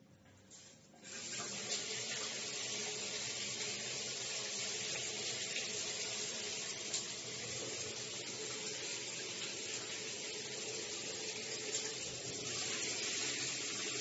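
Water falling from an overhead rain shower head and splashing in a tiled shower, coming on about a second in and then running steadily.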